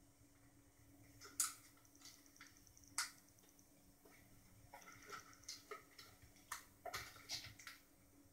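Small clicks and taps from the ribbon-cable connectors inside a Yamaha LS9 digital mixer being pushed and pulled by hand to release them: two sharp clicks about a second and a half apart, then a run of lighter clicks over the last few seconds.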